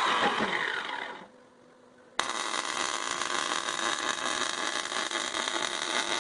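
A power tool working steel: a loud noisy run winding down with a falling pitch in the first second, then, after a short pause, a steady harsh hiss-and-whine that starts suddenly and stops abruptly about four seconds later.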